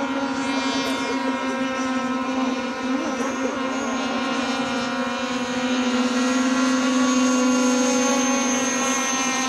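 Radio-controlled racing boats running flat out across the water, their motors giving a steady, high-pitched buzzing whine that grows louder a little past halfway.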